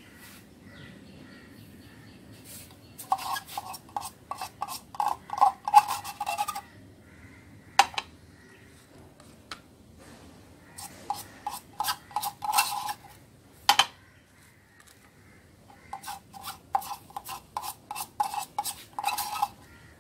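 A stick scraping round the inside of a metal tin of screen-printing ink, stirring it in three spells of quick rasping strokes that make the tin ring, with a few single knocks in between.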